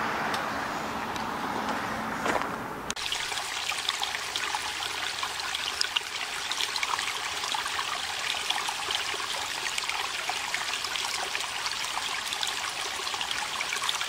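Shallow stream trickling and splashing over rocks in a small cascade, a steady rushing with many little splashes. It starts suddenly about three seconds in, replacing duller outdoor background noise.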